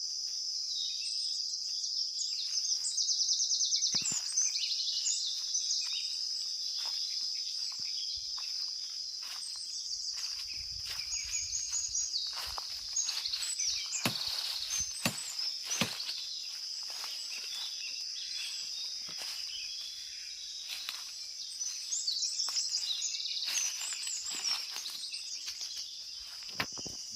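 Forest ambience: a steady high insect drone with birds chirping over it, and scattered sharp clicks and rustles.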